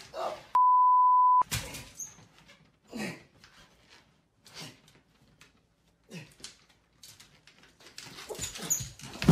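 A censor bleep, a steady single tone lasting just under a second, about half a second in. After it come faint scattered knocks and short sounds, growing louder and busier near the end.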